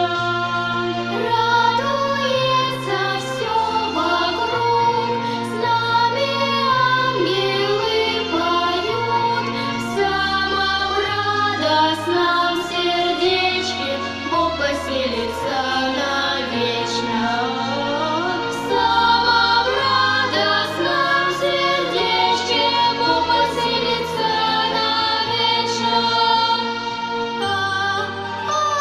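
Girls' voices singing a Christmas lullaby through microphones over an instrumental backing track with a steady bass line.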